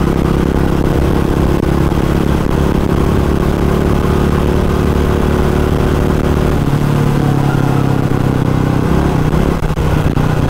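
Motorcycle engine running steadily while riding. Its note changes about two-thirds of the way through.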